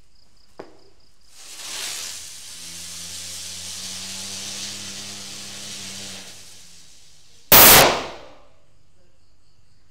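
Ground-spinner firework hissing as it throws out sparks, with a steady whirring hum, for about six seconds. It then bursts with one sharp, loud bang.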